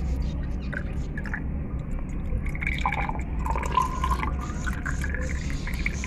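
Water trickling and splashing as it is poured from a jug into plastic bird drinker tubes. Its tone shifts as the tubes fill, most of it between about two and a half and five and a half seconds in, over a steady low hum.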